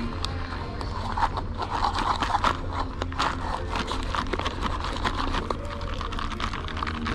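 Iced milk tea being shaken quickly in a large plastic cup with a domed lid: ice rattling and clicking against the cup, busiest in the first half.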